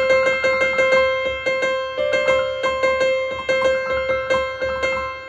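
Keyboard music: a quick run of evenly repeated notes, about six a second, over a held tone.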